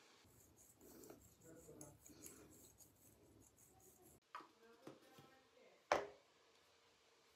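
Near silence with faint rubbing and handling sounds and a few soft clicks, then one sharp click about six seconds in.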